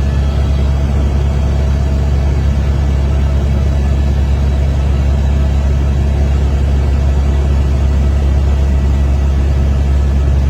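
Helicopter rotor and turbine running in a steady, loud, deep drone with a few faint steady whine tones above it.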